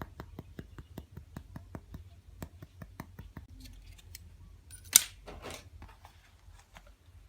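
A run of quick, light clicks, about six a second, then two loud, short rasping noises about five seconds in.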